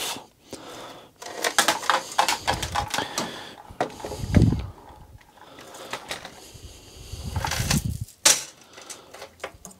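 Irregular clicks and light rattles of small metal parts, bent wire and tools, being handled on a workbench, with a few duller knocks. The loudest knock comes near the middle and a sharp click comes near the end.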